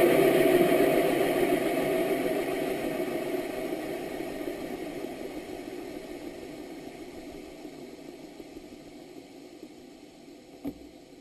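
Onboard audio of a rocket in flight: a steady rushing roar that fades away gradually over about ten seconds. There is a single short click near the end.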